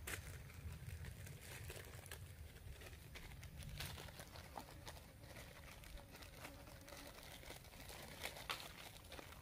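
Thin plastic food bag crinkling as it is handled and opened, in many short, irregular crackles.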